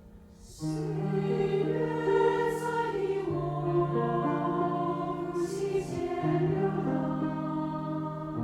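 A choir singing in parts, coming in sharply about half a second in after near quiet and holding long sustained chords, with brief hissing 's' consonants from the voices.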